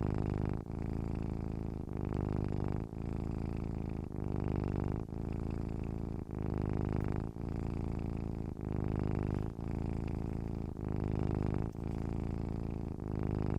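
Domestic cat purring steadily in a low buzz, swelling and dipping briefly about once a second as it breathes in and out.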